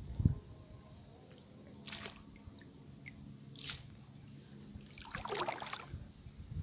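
Shallow seawater dripping and splashing lightly in a few short, separate bursts, with a dull low thump just after the start.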